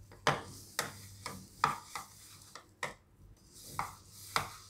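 Fingers mixing a moist cream-and-coconut stuffing in a plastic bowl: irregular light knocks of the hand against the plastic, about seven, with soft rubbing between them.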